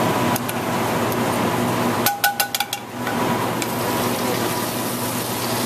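A quick run of sharp, ringing metal clinks about two seconds in, as steel tongs and pans knock against plates and each other. Under it runs the steady hum and hiss of a restaurant kitchen.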